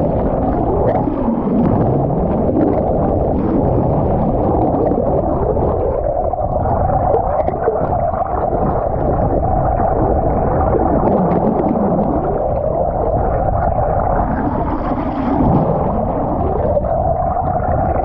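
Atlantic white-sided dolphins calling underwater: many overlapping whistles that glide down and back up in pitch, over a steady, muffled underwater rush.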